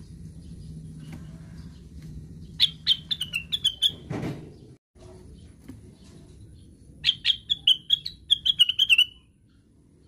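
Cucak wilis bulbul singing two short runs of quick chirped notes, each run lasting about a second and a half and falling slightly in pitch, the first a few seconds in and the second near the end. A brief dull rustle comes between the two runs.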